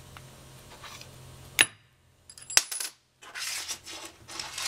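Steel parts of an Eaton posi differential clinking against each other: two sharp clinks about a second apart. Then a stretch of metal sliding and rattling as a steel shaft is worked into the side of the case.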